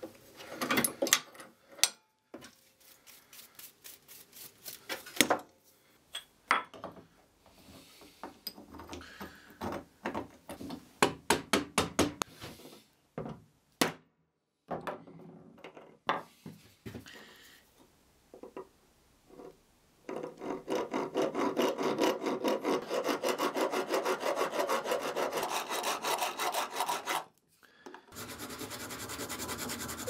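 Small hand file rasping back and forth in a slot in a metal tube, in fast even strokes through the second half, with a short break near the end. Before that, scattered clicks and knocks of metal parts and a vise being handled.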